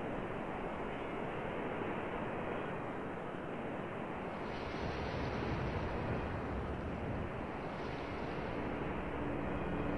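Ocean surf washing onto a beach with wind, an even rush of breaking waves that swells twice, about halfway through and again near the end.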